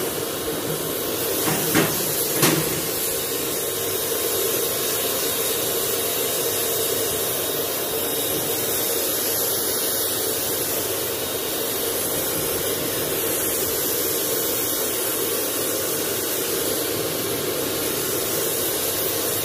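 Electric paint spray gun running steadily, spraying cooking oil onto a smoker's grates and chamber to season them. Its steady hiss runs throughout, with a couple of light knocks about two seconds in.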